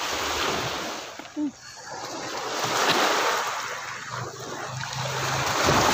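Sea waves washing onto the beach, the surf swelling and falling back over a few seconds, with a brief short sound about a second and a half in.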